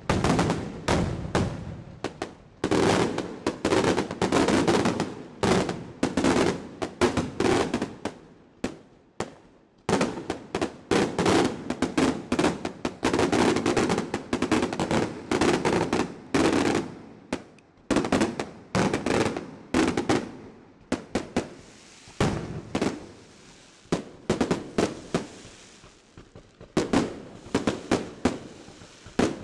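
Aerial firework shells bursting overhead in rapid volleys of sharp bangs, several a second. For a few seconds past the middle of the second half the bangs thin out under a steady hiss, then pick up again near the end.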